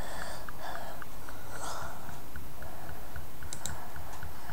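Faint, steady ticking, about four evenly spaced ticks a second, over a low hiss.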